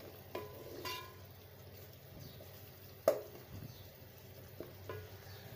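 A spoon stirring a chicken-and-vegetable masala frying in a metal pot: faint scraping and sizzling, with one sharp knock of the spoon against the pot about three seconds in.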